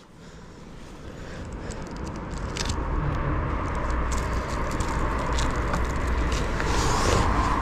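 A road vehicle approaching, its engine rumble and tyre noise growing steadily louder toward the end, with a few light clicks scattered through.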